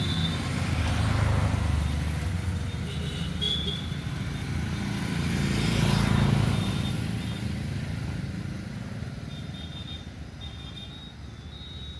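A low steady rumble that swells about halfway through and eases off near the end, with a few short, high chirps.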